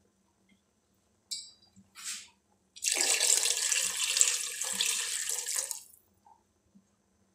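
Water poured in a stream into a metal karahi of fried peas and spices, a steady splashing rush for about three seconds that then stops. Two short splashes come a second or so before it.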